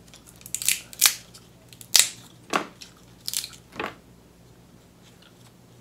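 Close-miked crunching and cracking of an oven-baked king crab leg whose shell has gone crispy, as it is broken open and bitten: about six sharp, crisp crunches over the first four seconds.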